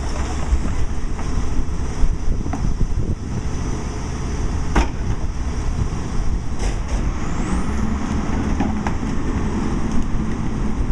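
Crane Carrier LET2 garbage truck with a Heil PowerTrak rear-load body running at the curb, its diesel engine rumbling steadily while the hydraulic cart tippers work. Sharp knocks and clanks come from plastic carts being hooked on and tipped, the loudest near the middle. From about seven seconds a rising whine sounds and the engine note swells as the second cart is lifted.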